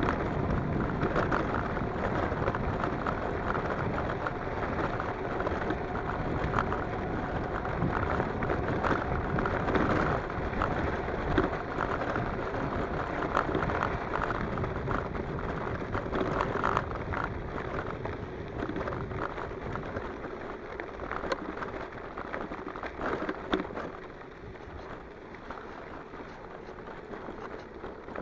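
Electric bike riding fast over a washboard gravel road: tyres crunching on gravel, with dense rattling and jolting of the bike. It gets quieter about 24 seconds in.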